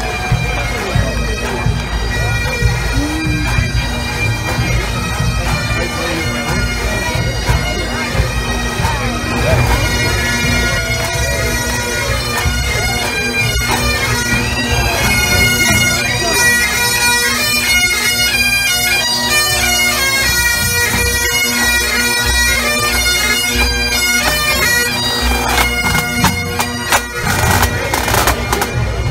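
Pipe band playing: bagpipes sounding a melody over their steady drone, with snare and bass drums keeping the beat.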